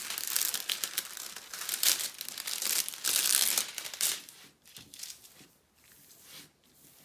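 Clear plastic protective film crinkling as it is peeled back off a diamond painting canvas, loud for the first four seconds or so, then quieter rustling as hands smooth the film and canvas flat.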